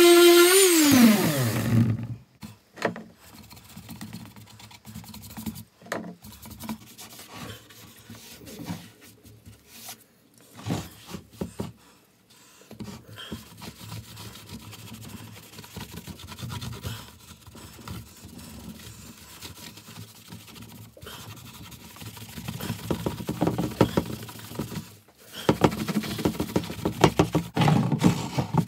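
A random orbital sander spins down, its whine falling in pitch until it stops about two seconds in. Then a cloth rubs wax into pallet-wood boards, with scattered scrapes and knocks that get busier and louder near the end.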